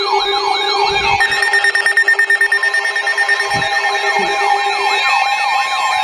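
Several weather alert radios sounding their alarms together. A siren-like warble sweeps up and down about three times a second, and steady alert tones join it about a second in.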